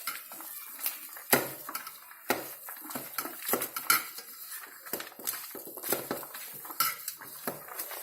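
A spoon clinking and scraping against a mixing bowl in irregular knocks while boiled potatoes are mashed and mixed to get the lumps out.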